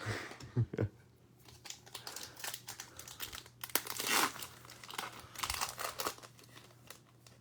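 Foil trading-card pack wrapper crinkling as it is handled and torn open, with a few low knocks in the first second.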